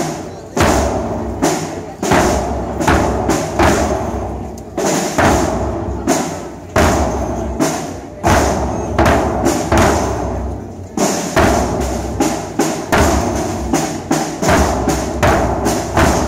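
Large processional drums beaten with sticks in a slow marching rhythm, about two strikes a second in a repeating pattern.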